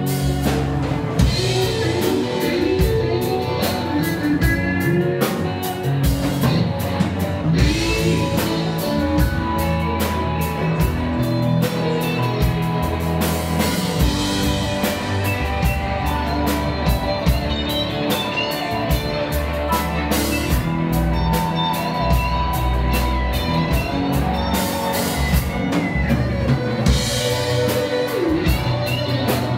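Live rock band playing: electric guitars, bass guitar and drum kit over a steady beat.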